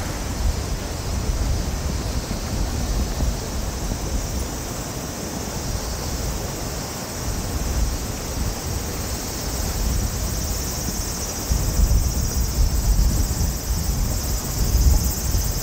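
Wind buffeting the microphone over a steady outdoor city noise bed with a constant high hiss; the buffeting grows stronger in the last few seconds.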